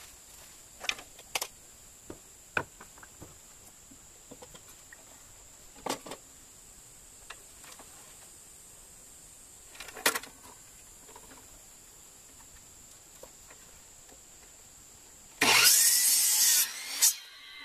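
Boards knocking and sliding against the metal fence and table of an electric miter saw as they are lined up, a few sharp clicks and knocks scattered through. Near the end the saw starts and cuts through a board in a loud burst lasting about a second.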